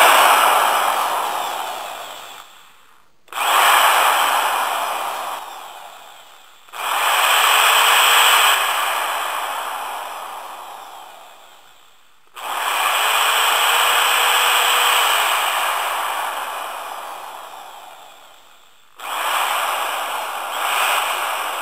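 Electric drill run in five separate bursts. Each starts abruptly and then fades away over a few seconds, a whirring, gritty noise without a clear pitch.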